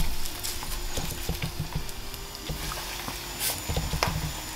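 Panko-breaded croquettes frying in hot olive oil in a small pan: a steady sizzle with scattered crackles and pops.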